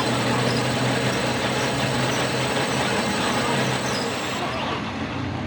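A steady mechanical drone with a low hum, like a running engine or workshop machine. It eases off slightly near the end.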